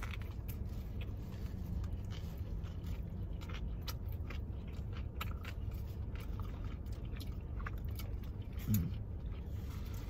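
Chewing and biting into soft sub sandwiches, with many small wet clicks and crackles, over a steady low hum.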